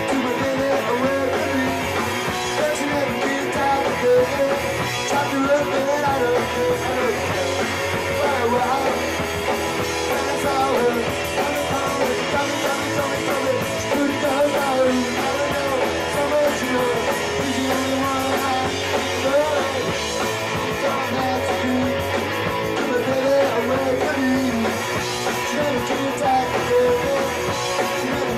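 Punk rock band playing live: guitar and a drum kit driving a fast rock song, loud and unbroken.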